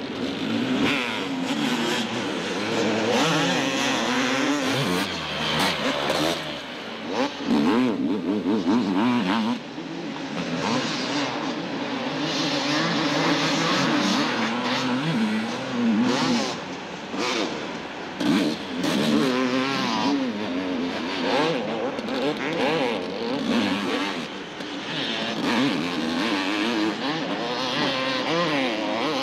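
Honda CR500R's single-cylinder two-stroke engine revving under hard throttle. Its pitch climbs and drops over and over, with a few short dips where the throttle is eased.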